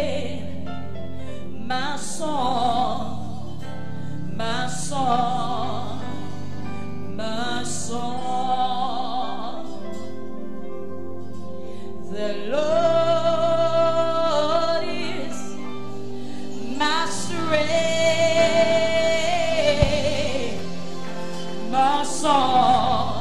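A woman singing a gospel worship song into a microphone over a steady instrumental backing, with sliding melodic runs and several long held notes.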